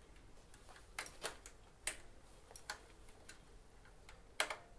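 Small metallic clicks and taps as a bicycle's rear rim brake is hooked back together by hand: a scattering of sharp clicks, the loudest near the end with a brief ring.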